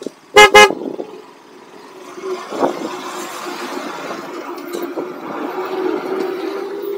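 The motorcycle's horn beeps twice in quick succession, very loud and close. The motorcycle engine then runs steadily, with tyre and gravel noise from the dirt road.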